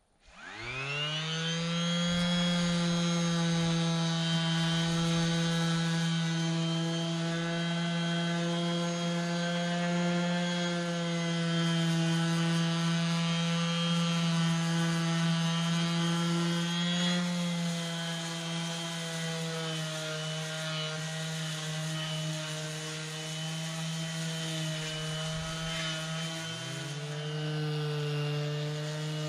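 Electric sander switched on, its motor spinning up within about a second and then running steadily, working on log walls. About 26 seconds in its pitch sags and quickly climbs back up.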